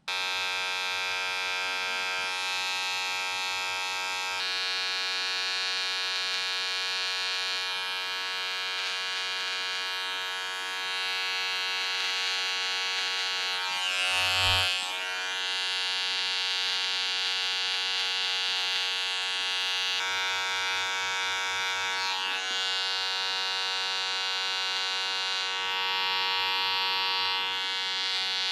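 Wahl Detailer electric trimmer, fitted with a freshly replaced, zero-gapped blade, running steadily with an even motor buzz while trimming hair. Its upper tone shifts a few times as it moves over the head, and there is a brief louder bump about halfway.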